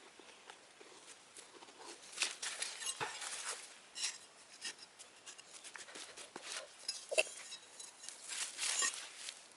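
Irregular rustling and scraping with scattered light clicks and taps, busiest about two to four seconds in and again near the end.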